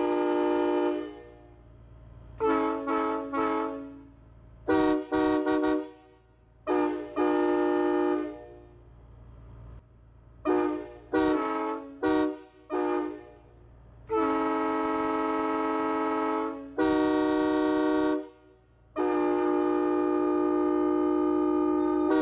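Truck-mounted Nathan AirChime cast train horn blowing its multi-note chord on compressed air. A blast at the start gives way to several runs of short, quick toots. In the second half come three long held blasts, the last still sounding at the end.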